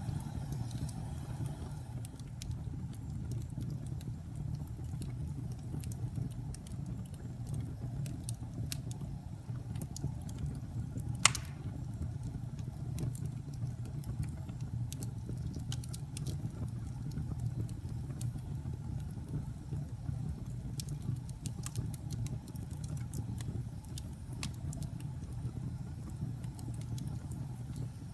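Wood fire burning with a steady low rush and scattered sharp crackles and pops, one louder pop about eleven seconds in.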